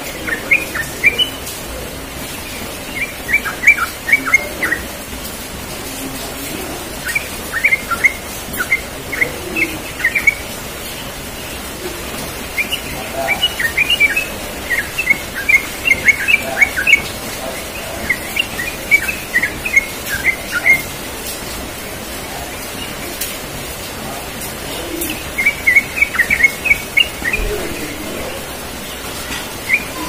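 Yellow-vented bulbul singing: short phrases of quick, bubbly chirping notes, about six phrases separated by pauses of a second or more, over a steady background hiss.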